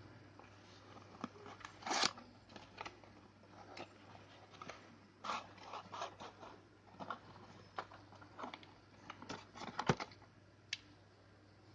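Handling noise: irregular clicks, crackles and scrapes, loudest about two seconds in and again near the end, over a faint steady low hum. No horn sounds.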